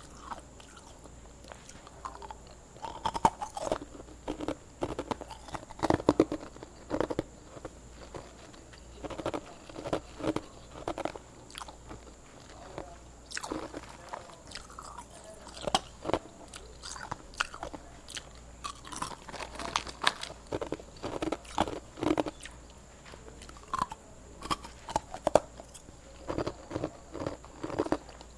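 Hard ice being bitten and chewed close to the microphone: irregular clusters of sharp crunches, with short pauses between bites.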